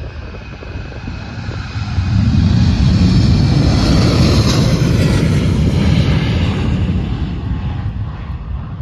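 Boeing 737 airliner's twin jet engines at full takeoff power as it accelerates down the runway and lifts off. The engine noise grows loud about two seconds in as the jet passes, with a whine over the roar, then slowly fades as it climbs away.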